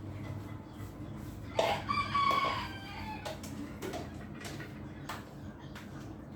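A rooster crowing once, a single call of a little over a second starting about a second and a half in, with a few faint clicks around it.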